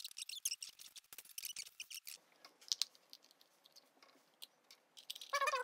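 Plastic parts of an old Apple ball mouse being handled and fitted back together: quick, faint clicks and ticks of the shell and cable for about two seconds, then sparser ticks, with a short pitched squeak near the end.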